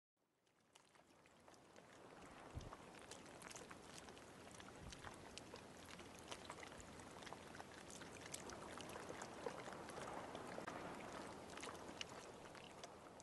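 Soft patter of rain falling on water, with many small separate drop plinks over an even hiss, fading in over the first couple of seconds.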